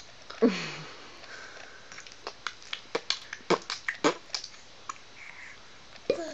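A short falling vocal sound, then a scatter of sharp clicks and smacks. Just before the end a baby lets out a short squeal.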